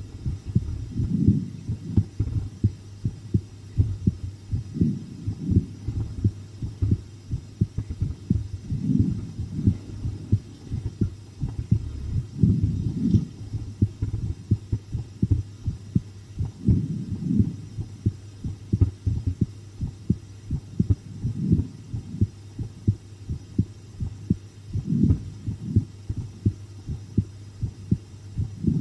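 A human heartbeat picked up close against the chest: a steady run of low, dull lub-dub thumps over a constant low hum, the beats swelling louder every few seconds.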